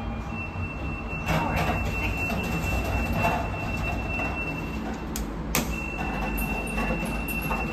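A 1995 Express (GEC) lift's doors sliding open at a landing, a rumbling run of the door gear under a steady high-pitched whine. Two sharp clicks come about five seconds in.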